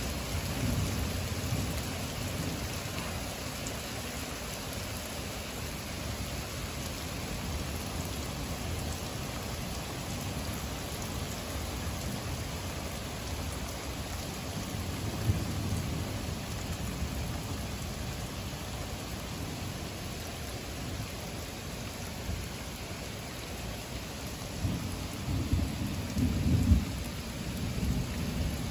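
Heavy rain falling steadily, with low rolls of thunder about a second in and around the middle, and a louder thunderclap near the end.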